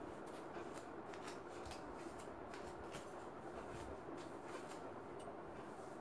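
Red plastic comb dragging through long, oiled, tangled hair in quick repeated scratchy strokes, about three or four a second.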